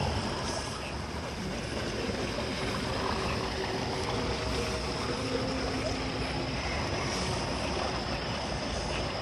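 Steady rushing background noise, with a faint high steady tone running through it.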